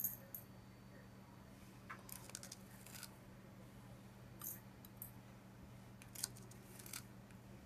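Faint scattered clicks and ticks of metal tweezers and small copper sulfate crystals dropping into and tapping a plastic cup, over a steady low hum.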